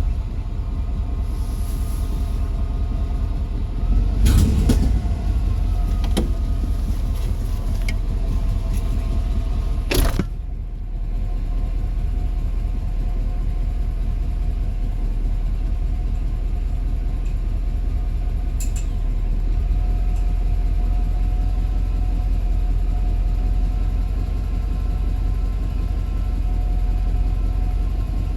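Car engine running at idle after a hard start, with a brief rev about four seconds in and a sharp click about ten seconds in, then settling into a steady idle.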